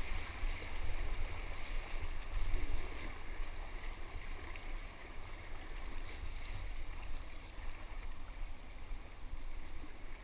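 River rapids rushing around an inflatable kayak, with the splashing of paddle strokes. The rush is loudest over the first three seconds and then eases as the water calms.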